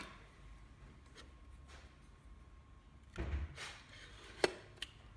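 Quiet handling of a fencing stapler's cylinder and driver blade being worked by hand: a click at the start, a dull knock about three seconds in, and a sharp click near the end.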